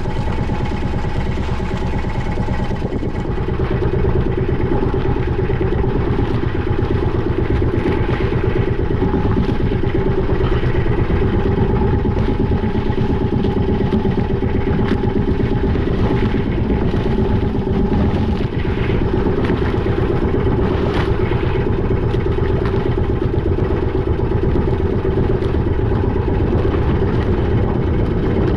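Boat engine running steadily at a constant speed with an even throb.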